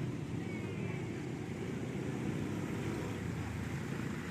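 ATV and trail-motorbike engines running with a steady low rumble.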